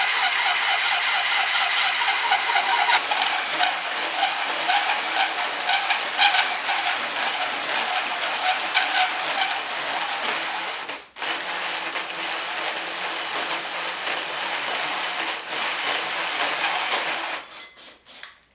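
Hole saw cutting through a flange plate, driven first by a drill press and then by a cordless hand drill. The drill press runs faster than suits a 4.5-inch hole saw. The cutting breaks off briefly about eleven seconds in and stops near the end.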